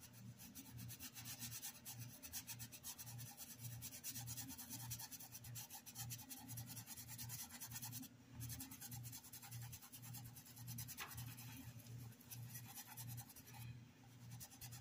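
Faint rubbing and scratching of a Pituá paintbrush scrubbing fabric paint into a cotton dish towel, in a steady rhythm of quick strokes.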